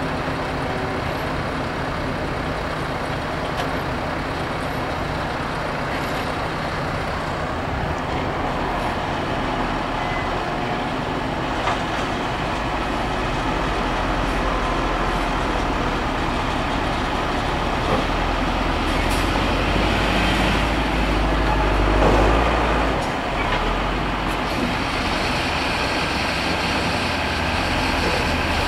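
Diesel tractor engines working at a silage pit, with a tractor towing a silage wagon drawing up close. The engine noise grows heavier through the middle and is loudest about two-thirds of the way in, with a brief rev that rises and falls.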